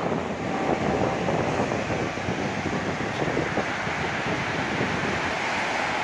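Small sea waves breaking and washing up a sandy shore in a steady hiss, with wind buffeting the microphone.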